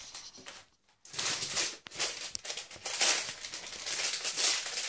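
Plastic wrapping crinkling and rustling in the hands as a small toy piece is unwrapped. It starts about a second in and goes on unevenly.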